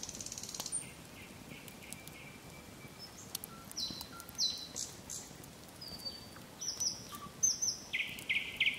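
Birds singing: short whistled notes scattered through, then a quickly repeated note near the end, over the faint crackle of a wood campfire.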